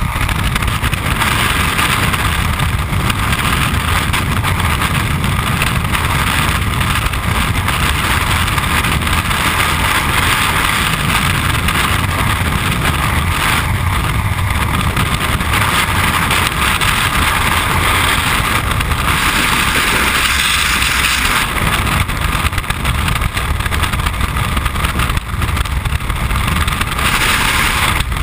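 Loud, steady rush of freefall wind buffeting the helmet camera's microphone, with no break throughout.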